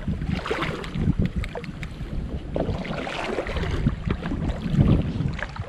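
Shallow seawater sloshing and splashing in uneven strokes, with wind buffeting the microphone.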